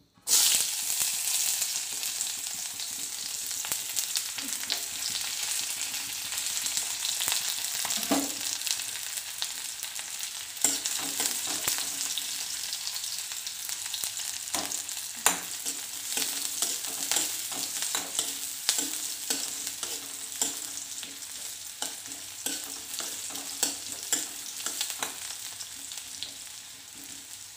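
Sliced onions dropped into hot oil in a kadai, sizzling loudly at once and then frying with a steady hiss. Now and then a spoon clicks and scrapes against the pan as the onions are stirred.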